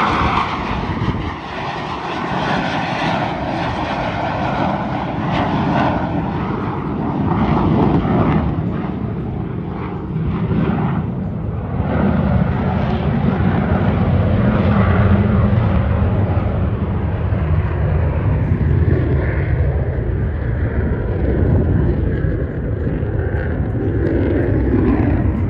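Fighter jet passing low and climbing away, its engine noise loud and continuous. It starts with a hissing upper edge and settles into a deep rumble about halfway through.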